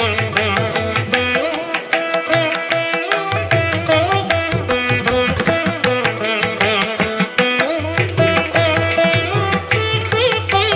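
Instrumental background music with quick plucked-string notes over a steady percussive pulse. The low bass drops out for about a second and a half near the start, then returns.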